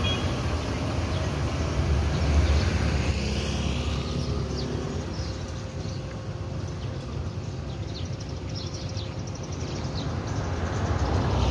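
Road traffic passing on the highway: a low rumble of vehicles swells about two seconds in, fades, and builds again as another vehicle approaches near the end.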